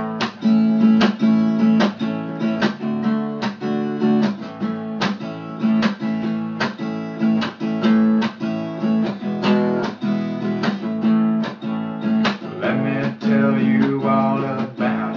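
Steel-string acoustic guitar strummed in a steady rhythmic pattern of chords, starting abruptly as the song's intro. A man's singing voice comes in over the strumming near the end.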